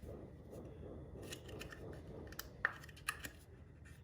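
Light handling noise of parts and tools being worked by hand: a low rustling, with two sharp clicks about two and a half and three seconds in.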